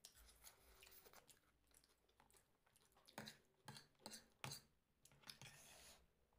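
Faint chewing of crunchy snack food: a few short, crisp crunches, most of them between about three and five seconds in.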